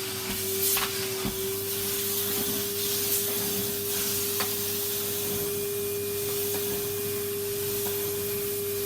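Vacuum cleaner running steadily, a constant one-pitch hum over an airy hiss, with a few faint knocks as the nozzle is moved.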